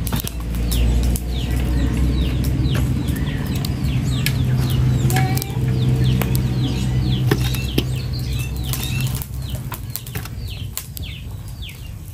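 Steady low rumble of wind buffeting the microphone, easing after about nine seconds, with birds chirping over it in many short falling notes and a few light clicks and knocks.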